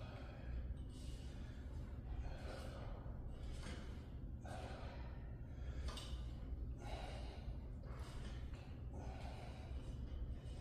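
A man breathing hard in short, noisy breaths about once a second, from the exertion of bodyweight split squats, over a low steady hum.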